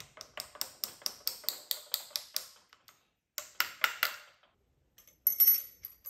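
Rapid light taps of a copper hammer on a thrust washer, driving the tight-fitting washer into its seat on the input shaft of a Graziano L140 transmission: about four or five taps a second for two and a half seconds, then a short second burst of taps after a pause, and a sharper metallic clink with a brief high ring near the end.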